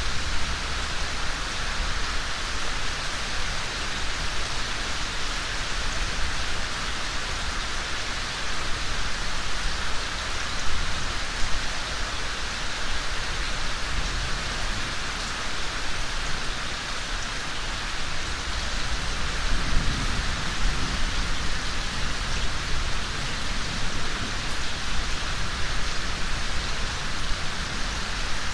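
Steady rain falling, an even hiss of many drops with a low rumble underneath.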